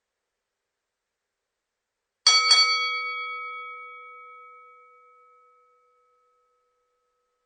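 Boxing ring bell struck twice in quick succession about two seconds in, then ringing on and fading away over a few seconds.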